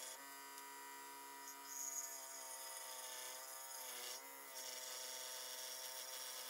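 Craftsman scroll saw running with a faint, steady buzz as it cuts through soft wood; its pitch sags briefly about four seconds in.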